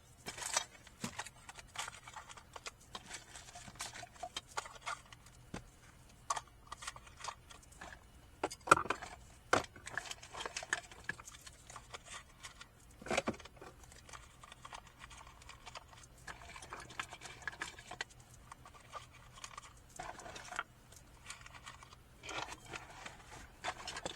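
Small plastic items such as lip gloss tubes, wipes and hair ties being handled and put back into a storage compartment: scattered light clicks, knocks and short rustles, with a couple of sharper knocks.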